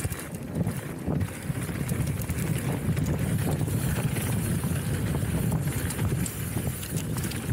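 Mountain bike riding over a rough trail: a steady rumble of tyres and wind buffeting the microphone, with small scattered rattling knocks.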